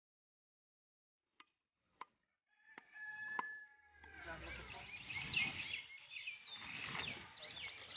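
Cleaver chopping beef on a wooden log block: a few sharp knocks about half a second apart. From about halfway, a busy background of bird calls and voices sets in and becomes the louder sound.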